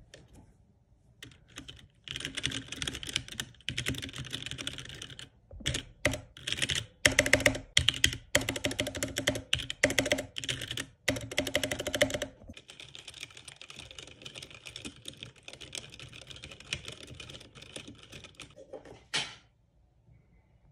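Typing on a compact mechanical keyboard, in changing styles: ordinary runs of keystrokes, then louder, heavier bursts of key strikes through the middle, then a long stretch of very fast, light, continuous typing that ends with one hard keystroke.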